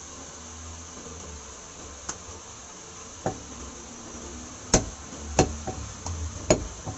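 Sharp knocks and chops on a wooden butcher's block as beef ribs are cut and handled, a few light ones and then a louder run in the second half, over a steady low hum.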